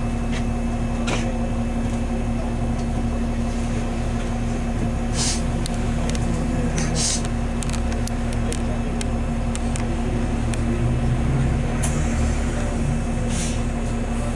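Inside a 2001 New Flyer D40LF transit bus: its diesel engine running with a steady low drone and a constant hum. Three short hisses come about 5, 7 and 13 seconds in, with a few light clicks between them.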